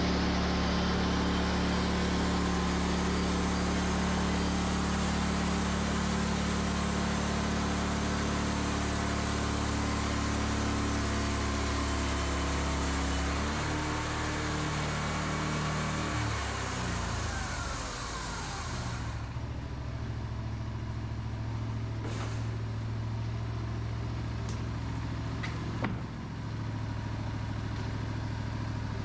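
Wood-Mizer band sawmill: its engine runs steadily while the band blade cuts lengthwise through a log cant. About two-thirds of the way through, the cutting hiss stops and the engine carries on alone, with a single knock near the end.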